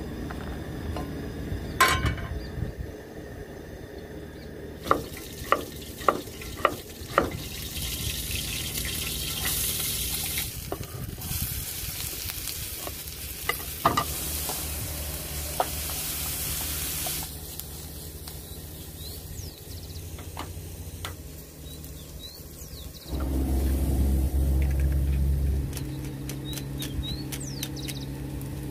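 Sliced onions and peppers sizzling in a frying pan on a portable gas stove, stirred with a wooden spoon that knocks several times against the pan; the hiss of the frying is strongest in the middle. About 23 seconds in, a low rumble rises for two or three seconds and is the loudest sound.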